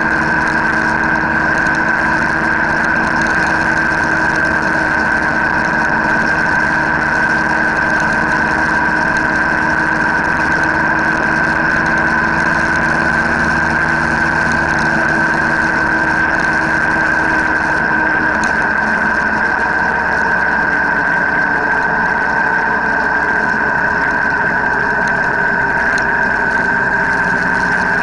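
Motorcycle engine running at a steady cruise, heard from a camera on the moving bike, over constant wind and road noise. The lower engine note shifts slightly about two-thirds of the way through.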